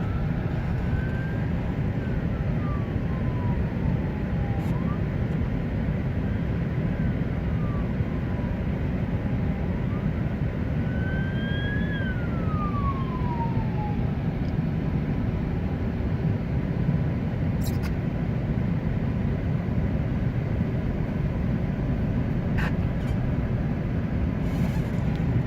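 Emergency vehicle siren wailing, slowly rising and falling in pitch several times and fading out about fourteen seconds in. It is heard over the steady low road and engine rumble inside a moving 2008 Chevy Tahoe.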